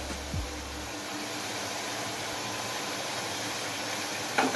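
Masala sizzling and bubbling in an aluminium pot on the stove: a steady hiss. A low hum under it stops about a second in, and a short, louder sound comes near the end.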